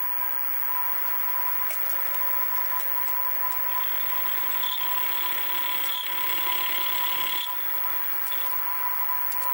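Sieg SX2P mini mill running with a fly cutter at about 500 rpm, a steady motor whine. From about four seconds in until about seven and a half seconds a harsher hiss joins as the cutter takes a light cut in the metal arm.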